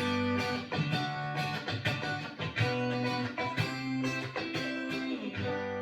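Clean Fender Stratocaster through a 1980 Fender Pro Reverb amp, fed through the B6K compressor pedal at high compression and fast attack, fully wet: a run of picked notes at an even, squashed level. Near the end it settles on one held note that keeps ringing with long sustain.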